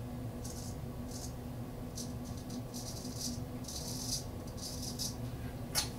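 Straight razor scraping through stubble in about ten short, irregular strokes, each a crisp high rasp, on a pass against the grain.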